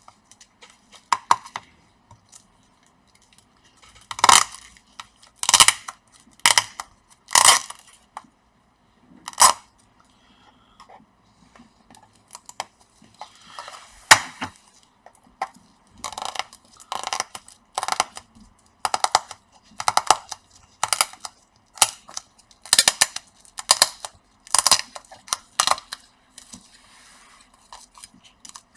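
A run of short, irregular scrapes and cracks of a small metal tool prying at the plastic and metal of a laptop's upper casing, working the old bonded keyboard loose.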